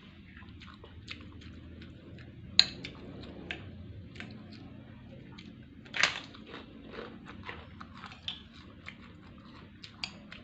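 Close-up eating sounds: wet chewing of rice and beef rawon with many small mouth clicks and crisp crunches of kerupuk crackers. The loudest crunches come about two and a half and six seconds in.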